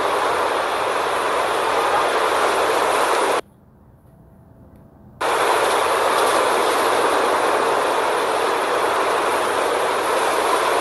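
Steady rushing noise of wind and surf on a beach, picked up by a phone lying on the sand. The noise drops away for about two seconds a little after three seconds in, then returns just as before.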